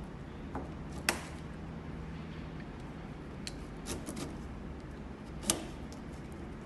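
Scattered sharp clicks and knocks of door lock hardware being handled and fitted into the door, with two louder knocks, one about a second in and one near the end.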